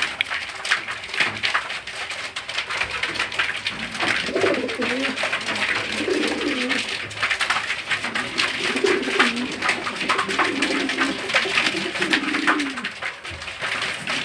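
Domestic pigeons cooing, several low wavering coos from about four seconds in, over a steady run of quick clicks from beaks pecking grain off a cardboard floor.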